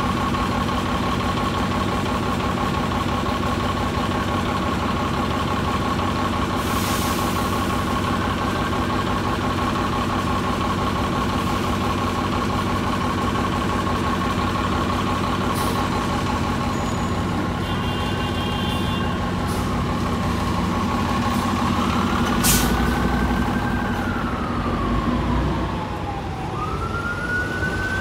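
Diesel city transit buses idling at the curb, a steady engine note with a constant whine over it and a few short hisses of air. About three-quarters of the way through, a siren starts wailing up and down while an engine grows louder at the low end.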